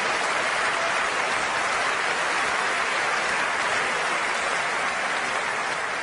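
Audience applauding steadily, dying away near the end.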